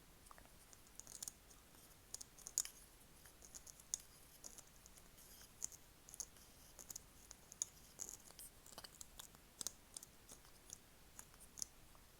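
Faint, irregular, high-pitched clicks and ticks close to the microphone, a few every second.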